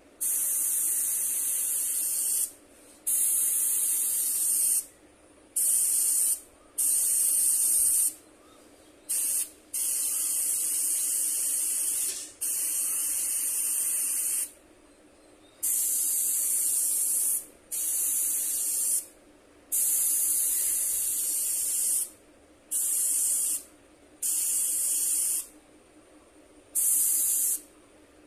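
Airbrush spraying paint in about a dozen short bursts of high hiss, each starting and stopping sharply and lasting from under a second to about two seconds.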